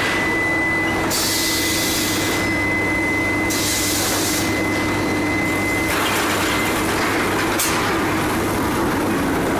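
Induction billet heating furnace line running, a steady machine hum with a thin high whine over it. Two bursts of hiss about a second long come partway through.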